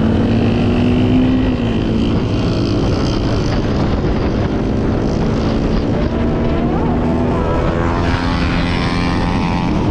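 Motorcycle riding in traffic: heavy wind rush over the microphone with a steady engine note underneath. Near the end an engine note climbs in pitch as a bike accelerates.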